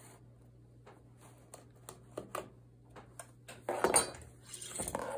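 Small clicks and taps of a metal weaving hook working cotton loops on a plastic potholder loom, then about four seconds in a louder clatter as the long metal hook is set down on the tabletop, followed by a brief scrape.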